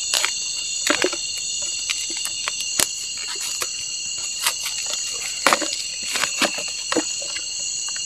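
A steady chorus of night insects, several high-pitched trills layered at different pitches. Occasional short clicks and rustles sound close by over it.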